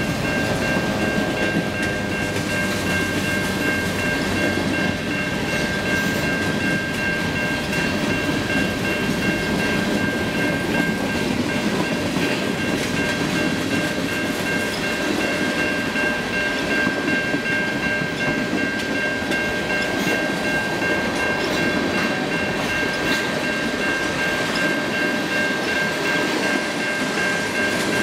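Freight train of covered hoppers and tank cars rolling past at speed: a continuous rumble and rattle of wheels and cars on the rails, with a steady high whine running above it.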